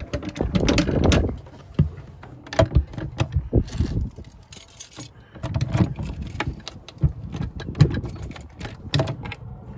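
A wooden cabin door's metal lock being turned by its knob, giving irregular metallic clicks and rattles as it catches on the head of a screw fitted as a makeshift latch stop.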